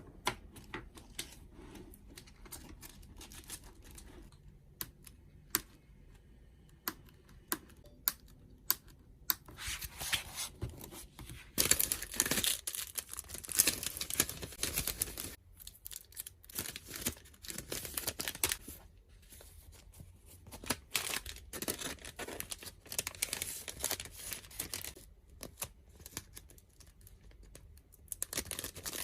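Adhesive tape being pulled off rolls and torn, with crinkling of packaging. The first ten seconds or so hold only scattered small clicks and taps, then about twelve seconds in come repeated rasping rips.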